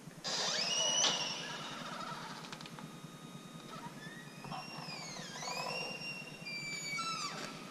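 Heavy metal door creaking as it swings open: a string of squeals that glide up and down in pitch, with a knock about a second in.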